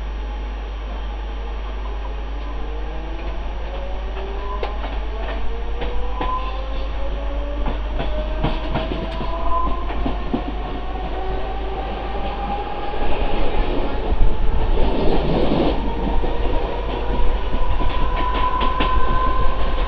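Mumbai suburban electric local train gathering speed, heard at its open doorway: a whine of several tones rises steadily in pitch while the wheels clack over rail joints, the running noise growing louder about two-thirds of the way in.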